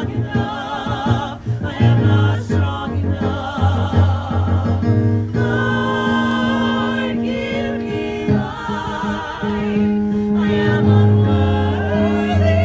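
Mixed ensemble of men and women singing a musical-theatre number in harmony, with long held notes and vibrato.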